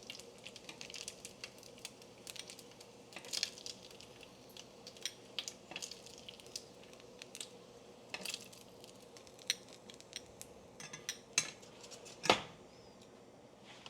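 A kitchen utensil clicking and scraping against a frying pan as cooked bacon is lifted out, a scatter of small sharp clicks over a faint crackle, with one louder knock about twelve seconds in.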